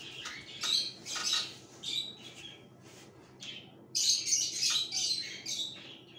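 An injured dog squealing in short, high-pitched cries, several in a row, loudest about four seconds in.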